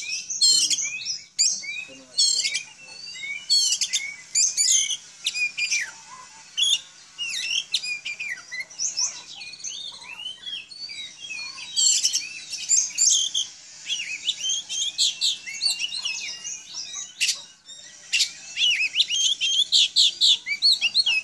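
Oriental magpie-robin (kacer) singing: a fast, varied string of whistles, trills and sharp chips that goes on almost without a break.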